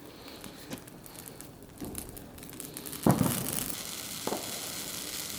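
Bonfire crackling and hissing, with a sharp thump about three seconds in, after which the crackle and hiss grow louder.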